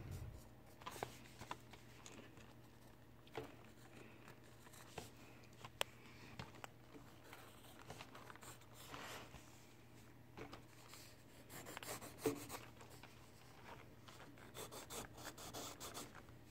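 Faint pencil strokes scratching and rubbing on paper in irregular short runs, with scattered light taps and clicks of the pencil, over a steady low hum.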